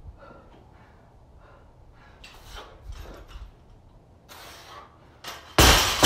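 A 135 lb barbell with black bumper plates dropped onto rubber floor mats about five and a half seconds in: a sudden loud crash, then the bar bouncing. Before it come a few short, hard breaths from the lifter.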